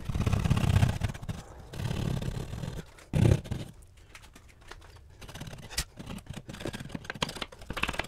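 Hand jab saw cutting through drywall in rough rasping strokes, with a single thump about three seconds in. Lighter scraping and clicks follow as the edges of the square opening are trimmed.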